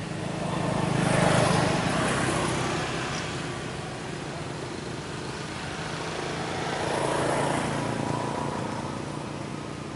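Two road vehicles passing by one after the other, each engine sound swelling and fading over a few seconds: the first is loudest about a second in, the second about seven seconds in.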